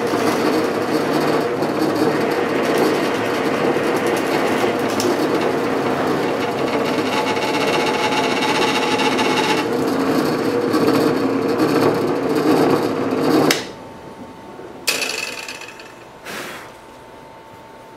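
Drill press running and boring a 3/8-inch hole with an all-purpose bit through stacked wood pieces, a steady motor hum under the cutting noise. About thirteen seconds in the sound stops abruptly, followed by a couple of light knocks.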